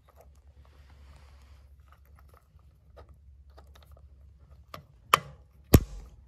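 Small metal clicks and clinks of steel shift-mechanism parts (shaft and gears) being fitted into an aluminium transmission case, ending with two sharp metallic clicks about five and six seconds in.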